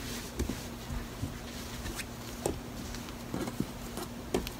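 Soft taps and rustling of hands patting and smoothing a crocheted yarn piece flat on a tabletop, a few scattered light knocks, over a faint steady hum.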